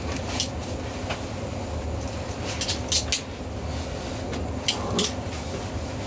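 Cooking at a street-food griddle: a steady low rumble with a few sharp metal clicks and clinks of utensils, a cluster about three seconds in and two more around five seconds in.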